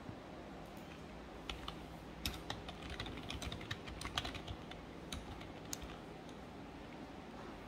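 Typing on a computer keyboard: quick, irregular key clicks, busiest through the middle and sparse near the start and end.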